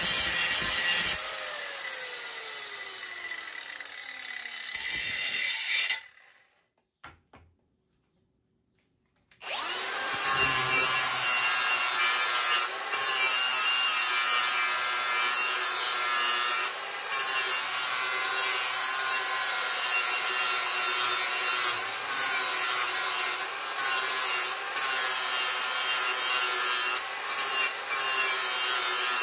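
Electric grinder sharpening a steel lawn mower blade. About a second in the grinding stops and the motor's whine falls away as it winds down; after a few seconds of quiet it starts again about ten seconds in and grinds steadily, with short breaks.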